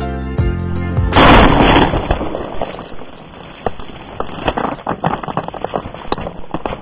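Background music that cuts off about a second in, replaced by a sudden loud rush of noise lasting under a second, then scattered light knocks and pops.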